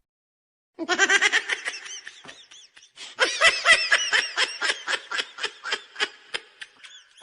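Laughter sound effect: a high, hearty laugh in rapid ha-ha pulses, starting about a second in, swelling again around three seconds and trailing off near the end.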